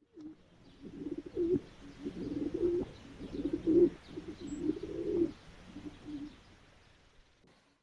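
A dove cooing: a run of low, throaty coos in phrases about a second apart, fading out near the end.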